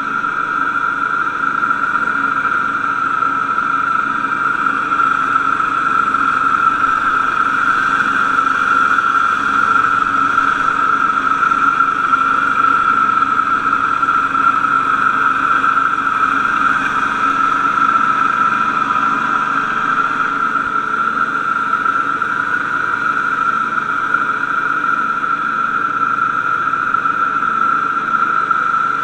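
Wright Stander stand-on mower running steadily while mowing grass, its engine drone under a steady high whine.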